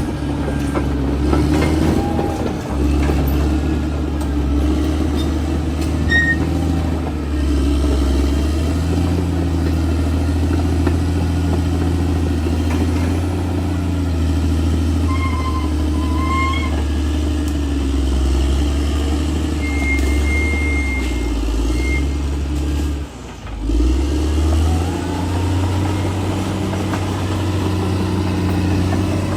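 Heavy diesel engine of a bulldozer running steadily at work, its low drone shifting a little in pitch, with a short drop in level about two-thirds of the way through.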